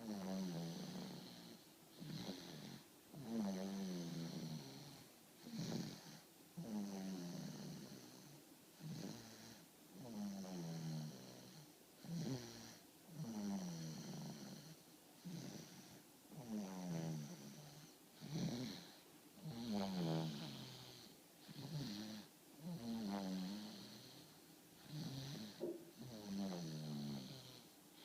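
A person snoring in a steady rhythm, about one snore every second and a half. Each snore is a rattling tone that drops in pitch, with an airy hiss of breath.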